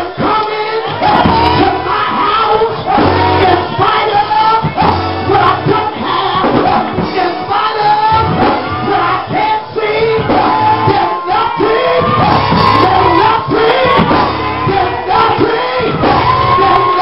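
Gospel music: a woman singing loudly into a microphone in long, held, sliding phrases over instrumental accompaniment.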